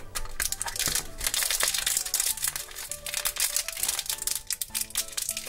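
Crinkly plastic-foil blind-bag wrapper being torn open and unwrapped by hand, a dense run of crackling, over soft background music.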